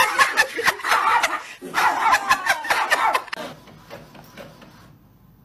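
People laughing hard, breaking off about three and a half seconds in; after that only a faint sound remains.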